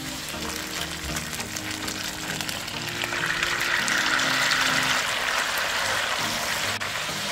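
Chicken thighs sizzling in a hot frying pan under background music; about three seconds in, the sizzle swells louder as the marinade is poured into the pan, then settles to steady bubbling.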